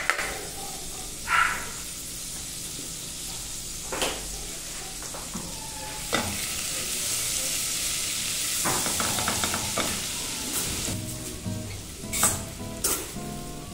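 Crushed garlic sizzling steadily in hot lard in a stainless steel pot, with a nylon spatula scraping and knocking against the pot as it is stirred. Near the end raw rice is tipped into the hot fat.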